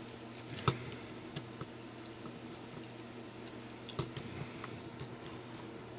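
Light plastic clicks and taps from a Transformers Prime Deluxe Class Ratchet action figure as its parts are turned and snapped into place during transformation. The clicks are scattered and irregular, with a few sharper ones about half a second in and around four seconds.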